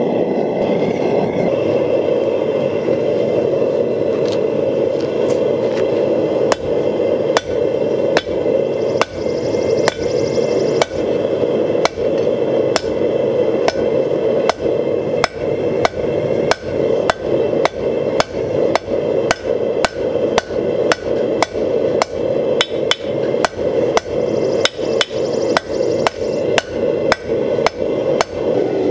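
Rounding hammer striking red-hot rebar on an anvil to draw it out. Repeated blows begin several seconds in and go on at about two a second. Underneath runs the steady roar of the forge burner.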